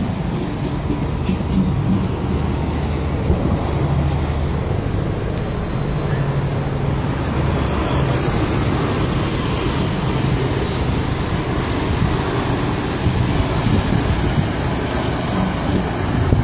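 Articulated city bus's diesel engine running with a steady low drone, over street traffic noise.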